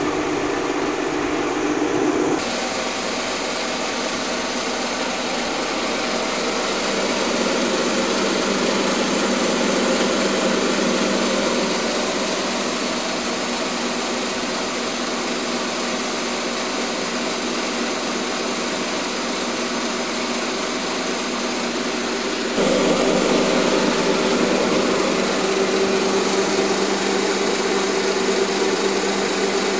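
Koei Sangyo 1000-type Sato-type circular vibrating sieve running empty on test: a steady motor hum and buzz from the vibrating stainless-steel deck. The sound changes abruptly twice, about 2 seconds in and again about 23 seconds in.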